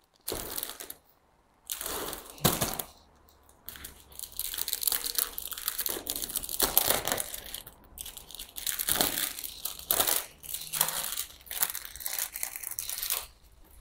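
Clear plastic plant sleeve crinkling and rustling in irregular bursts as it is worked loose from a potted plant and pulled up off it.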